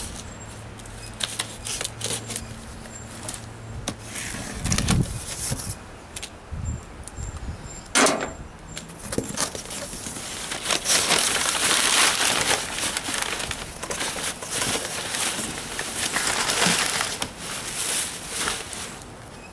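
Packing tape being slit and cardboard box flaps pulled open, with scattered scrapes and a sharp knock about eight seconds in, then a long stretch of rustling and crackling packing paper and cardboard as the contents are lifted out.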